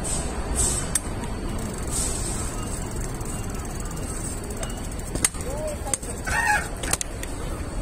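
City street ambience: a steady traffic hum with low rumble, a few sharp clicks, and a short high-pitched call about six and a half seconds in.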